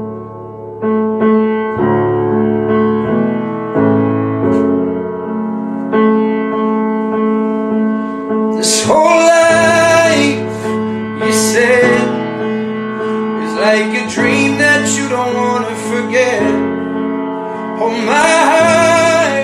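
Grand piano playing slow, held chords, with a man's singing voice coming in about halfway through in several sung phrases over the piano.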